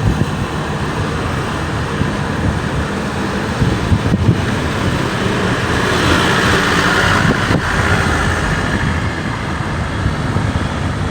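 Steady road and wind noise of a moving vehicle, getting a little louder about six seconds in.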